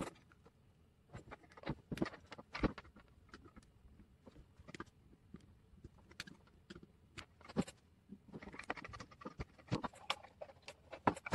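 Irregular clicks and taps of small plastic model-truck parts being handled and worked loose by hand, coming thicker toward the end.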